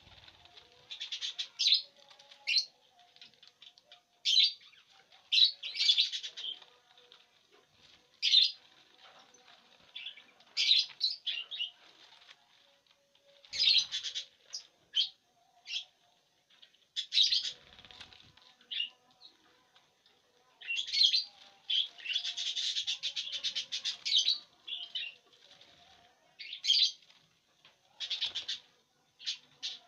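Lovebirds giving short, shrill chirps in bursts every second or two, with a longer run of rapid chattering about three-quarters of the way through, and wings flapping as birds take off and land.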